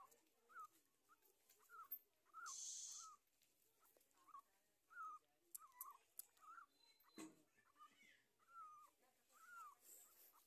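Faint, repeated short squeaks and whimpers from puppies nursing, about one or two a second, each a little rising and falling squeal. A brief hiss comes about two and a half seconds in, and a single knock about seven seconds in.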